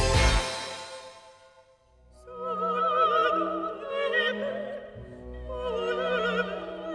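Background music: the title theme fades out over the first couple of seconds, then an operatic voice sings with wide vibrato over a sustained orchestral accompaniment. The singing comes in two phrases, with a brief dip about five seconds in.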